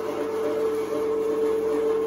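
Stainless-steel electric meat grinder running steadily under load, its motor giving a constant hum while it forces meat through the mincing plate.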